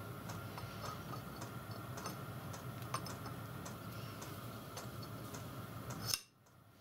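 Light, irregular metallic clicks and taps as cast iron valve chest parts are handled and seated over steel studs on a model steam locomotive's cylinder block, over a steady background hum. The hum cuts out abruptly near the end.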